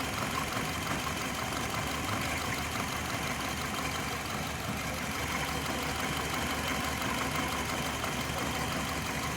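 2005 Hyundai Matrix four-cylinder engine idling steadily. It has a misfire (code P0302) that is being traced to uneven injection.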